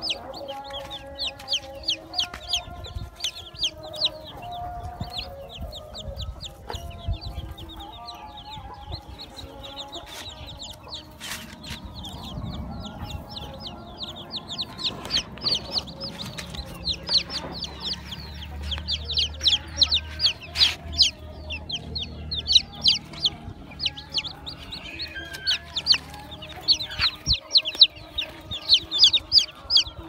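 A brood of newly hatched chicks peeping: many short, high calls in quick succession, growing louder in the last few seconds. Lower clucking of adult chickens runs underneath.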